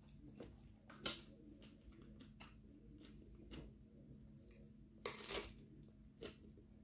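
Quiet eating sounds. A sharp click about a second in, then a crisp crunch lasting about half a second, about five seconds in, as a raw long red pepper is bitten, with soft chewing ticks between.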